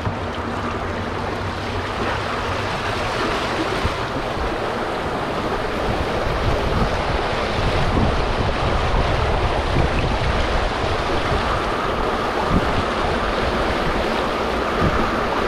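Rushing, churning water of a boat chute beside a river weir, heard from a kayak running down it, with wind buffeting the microphone.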